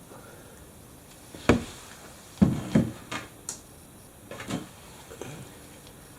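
A handful of short, sharp knocks and clunks, about six in three seconds, the loudest about a second and a half in, as of objects being handled and set down.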